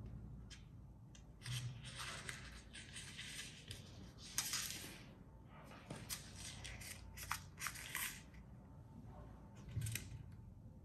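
A US one-dollar bill rustling and crinkling as it is folded and creased by hand, in short irregular bursts with a few light clicks.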